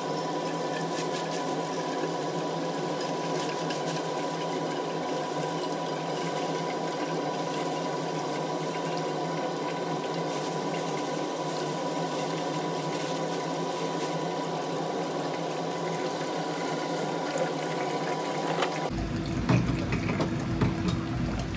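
Steady rushing, watery noise with a thin high hum running through it. A little before the end the sound turns fuller, with a few sharp clinks.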